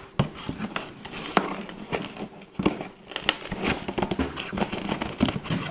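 Crinkling and rustling of packaging being handled, with irregular sharp clicks and taps.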